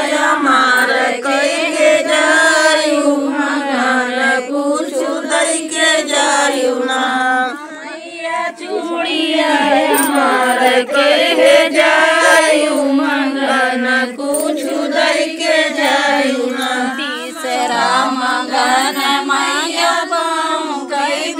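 A group of women singing a devotional folk song together, voices rising and falling in a chant-like melody, with a brief quieter moment about eight seconds in.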